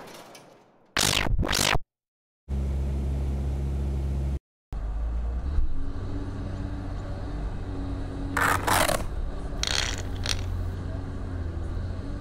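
Two short plastic clicks of toys being handled, then a steady low engine-like hum as the toy aircraft carrier moves. The hum cuts in abruptly twice and carries a few brief scrapes about two-thirds of the way through.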